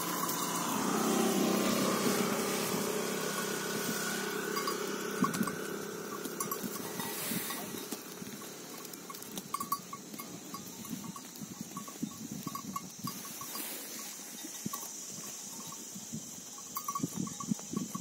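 Small livestock bells on a grazing flock clink irregularly now and then. In the first few seconds a low drone fades away under them.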